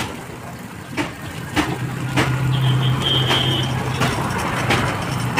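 Sharp metal clinks on a flat iron griddle, every half second to a second, from the steel spatula and utensils of a chowmein stall, over a steady low engine hum from road traffic.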